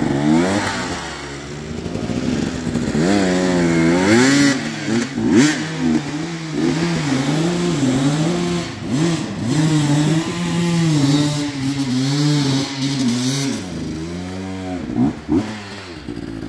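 Enduro dirt bike engine revving up and down again and again as the rider works the throttle under load on a steep muddy climb.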